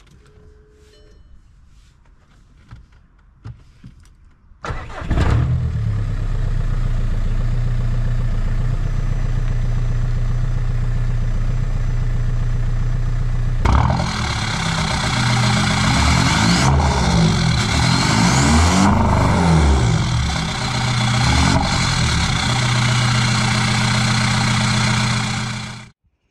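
Audi A1's swapped-in 1.9 TDI PD130 four-cylinder diesel starting on the key after a few seconds of small clicks, then idling steadily; the swap is running on its standalone Fabia VRS ECU loom. Heard again at the tailpipe, it is revved a few times and settles back to idle before cutting off suddenly near the end.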